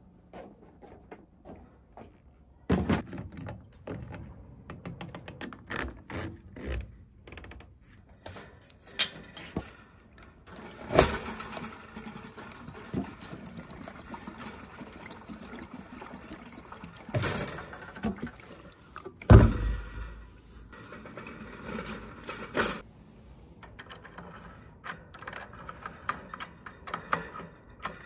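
Gear being handled and set down: a run of scattered knocks, clatter and rustling, with a heavy thump about 19 seconds in.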